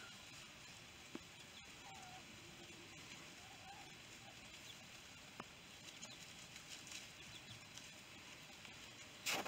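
Faint outdoor ambience of a grazing goat herd: light rustling and a few faint short calls, with one sharp knock near the end that is the loudest sound.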